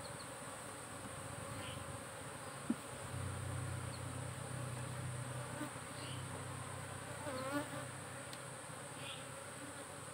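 Asian honey bees (Apis cerana) buzzing over an open hive, a steady hum that grows louder for a few seconds in the middle.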